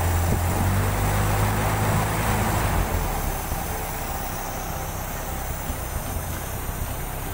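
Toyota 5K four-cylinder carburetted petrol engine running with its RPM raised, then easing off and running a little quieter about three seconds in.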